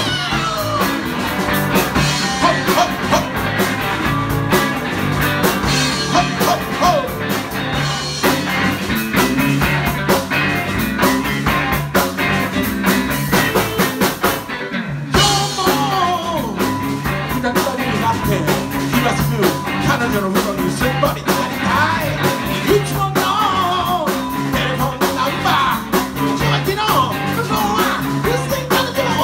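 Live rock band playing: electric guitars, drum kit and a male lead singer. The band stops dead for a moment about halfway through, then comes back in.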